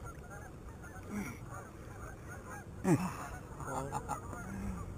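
A flock of geese honking steadily in the background, many overlapping calls. About three seconds in comes one louder, sharply falling cry.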